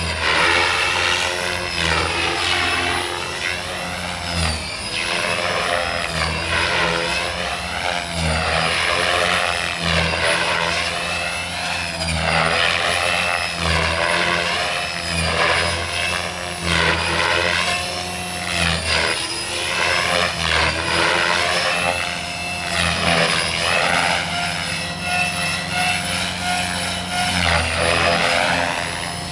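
Electric RC helicopter (Gaui X5 with a Scorpion brushless motor) in flight: the motor whine and main-rotor blade noise run continuously, their pitch swinging up and down every second or two as it manoeuvres and passes.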